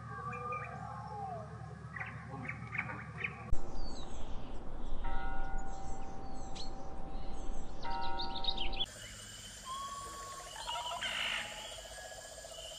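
Outdoor ambience of birds chirping and whistling, with short calls and gliding notes. The background changes abruptly twice. A louder, noisier stretch with steady tones runs through the middle.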